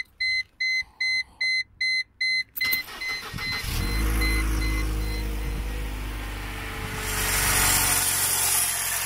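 A run of loud electronic warning beeps, about three a second, fading to softer beeps, then the Mercedes W202's M111 four-cylinder petrol engine cranks briefly and starts about three and a half seconds in, settling into a steady idle. Near the end the engine's sound turns brighter and hissier, carrying the under-bonnet noise from a failing belt-tensioner pulley bearing.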